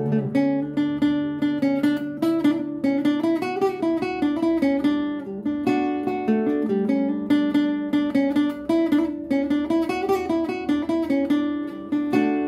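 Classical guitar playing an instrumental passage, a quick, rhythmic run of plucked notes and chords with no voice.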